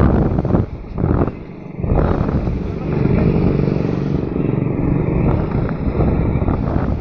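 Motorcycle engine running while riding along, with wind buffeting the microphone. The noise drops away briefly twice in the first two seconds.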